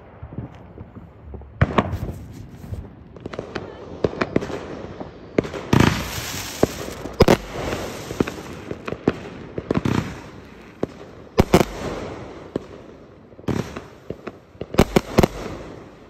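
Consumer fireworks going off: an irregular run of sharp bangs and booms, some in quick clusters, with a dense crackling hiss about six seconds in.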